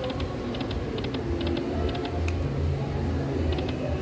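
Dragon Link Autumn Moon slot machine spinning: small clusters of three or four quick ticks come again and again over a low, steady casino hum.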